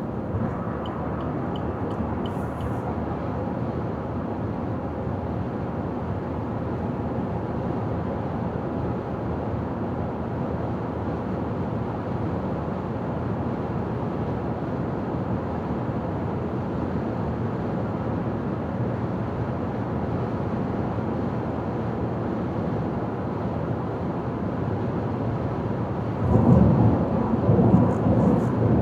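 Steady road and tyre noise of a car driving at highway speed, with a louder rumbling stretch lasting a few seconds near the end.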